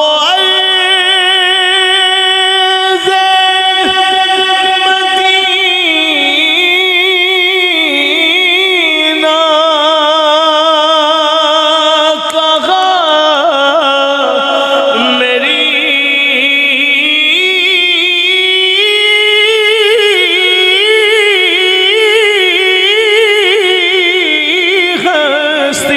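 A male voice singing a naat through a microphone, drawing out long melismatic notes with a wavering vibrato that glide up and down in pitch.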